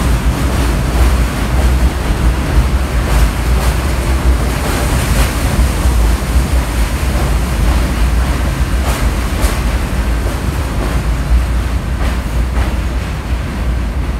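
Subway train running through a station without stopping: a loud, steady rumble of steel wheels on the rails with a few sharp clacks, fading slightly as the last car pulls away. Heavy wind rumble on the microphone is mixed in.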